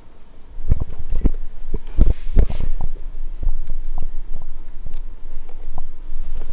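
Kittens scuffling at close range: irregular low thumps, loudest about one and two seconds in, with lighter knocks and clicks scattered throughout.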